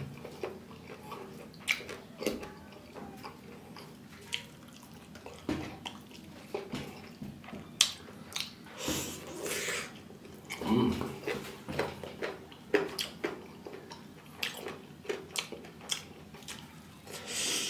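Close-up eating sounds: wet chewing and mouth smacking, with short clicks and squelches of fingers mixing rice and curry on a steel plate.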